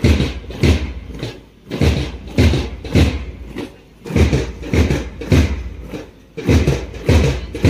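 A parade drum beats marching time. Heavy booming strokes come three at a time, about 0.6 s apart, and each group is followed by a one-beat rest.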